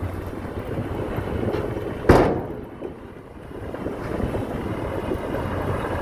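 Heavy construction machinery running with a steady low rumble, and a single loud bang or thud about two seconds in.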